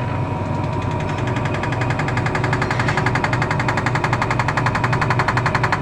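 LG top-loading washing machine spinning up with its motor pulling, a low hum under a fast, even rattling clatter that builds after a second or so. This is the abnormal spin noise, which the owner traces to the tub's ring.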